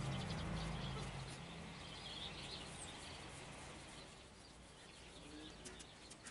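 Faint outdoor ambience with birds chirping. A low hum fades out in the first second, and a few faint clicks come near the end.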